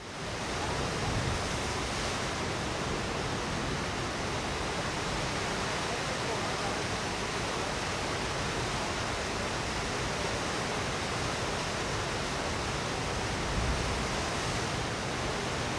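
Steady, even rushing sound of water that fades in over the first second.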